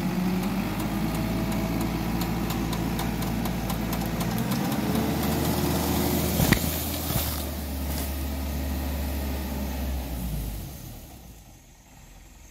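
Small truck's engine idling steadily, with a sharp click about six and a half seconds in; the engine sound dies away near the end.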